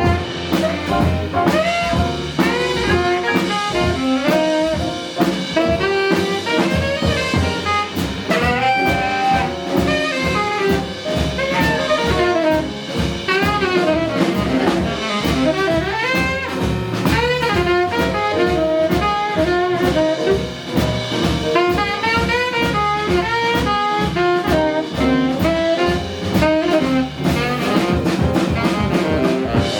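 Live jazz combo playing: a saxophone lead running fast lines over piano, bass and drums, with steady cymbal and drum strokes keeping time.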